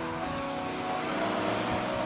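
Background music with held notes that change pitch every half second or so.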